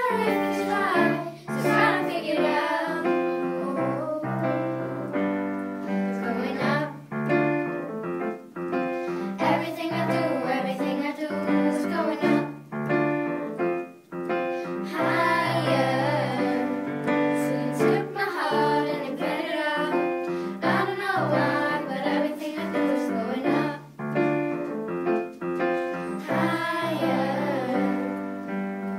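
A group of young girls singing a song in unison, accompanied by piano.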